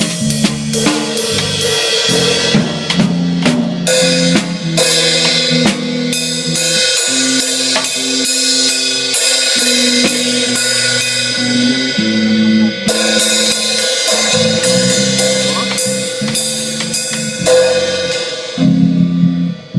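Band music with a full drum kit to the fore: snare, bass drum and cymbal hits over a moving bass line.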